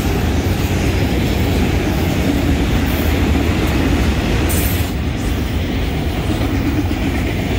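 Freight train of autorack cars rolling past at close range: steady rumble of steel wheels on rail, with a brief high-pitched hiss about four and a half seconds in.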